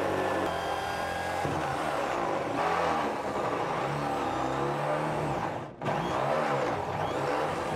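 Electric drill with a step bit boring through the sheet-metal fender of a Suzuki Jimny. The motor's pitch rises and falls as the trigger is worked. It stops for a moment about six seconds in, then starts again.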